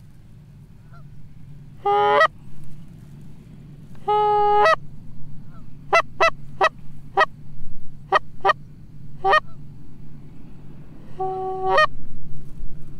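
Canada goose call being blown: two drawn-out honks that crack upward at the end, then a run of about seven short quick clucks, and one more honk near the end. It is calling to a single goose passing overhead to draw it in to the decoys.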